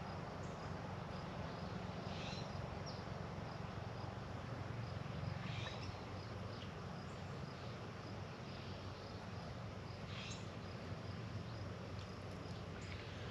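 Outdoor ambience: a steady rushing background with a short, high chirp every few seconds.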